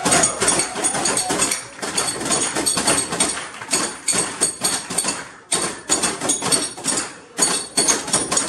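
Toolboxes played as percussion: rapid, rhythmic clattering blows of hammers and hands on the boxes and their folding trays, with a high metallic ring. There are brief breaks about five and seven seconds in.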